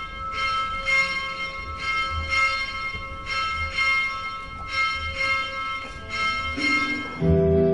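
Church bells ringing, a steady run of strokes about one or two a second. Near the end, instrumental music with low sustained notes comes in.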